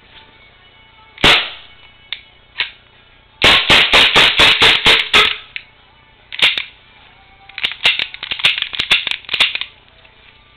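Gas blowback airsoft pistol firing: a single shot, then a rapid string of about ten shots, another single shot, and a second quick string.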